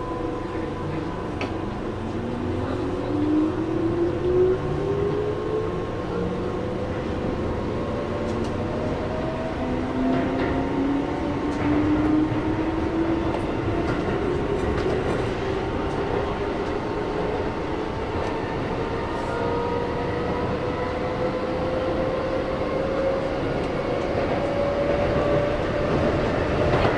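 Keihan electric train running, heard from inside the front car: a steady rumble with the traction motors' whine slowly rising in pitch as the train gathers speed, and light clicks from the wheels.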